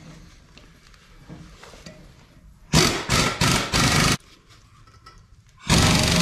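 Impact wrench hammering on a puller's screw to push a stuck shaft out through a tractor brake drum. There are a few short bursts about three seconds in, a pause, then a continuous run starting near the end.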